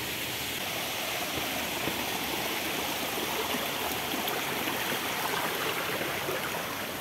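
Flowing stream water running steadily, an even rushing hiss.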